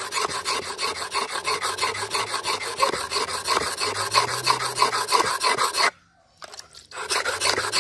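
A steel knife blade is stroked quickly back and forth on a wet flat whetstone, making a steady rasping scrape at several strokes a second. The strokes stop briefly about six seconds in, then start again.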